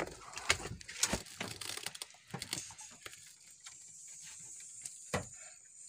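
Scattered light clicks and knocks from handling a freshly caught red grouper on a wooden boat deck, with a faint steady high hiss in the second half.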